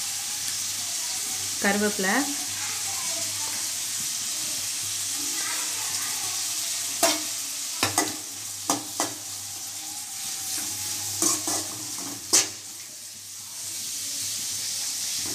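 Sliced onions frying in oil in an aluminium kadai with a steady sizzle. About halfway through, a metal slotted spoon stirs them, knocking and scraping against the pan in a run of sharp clinks.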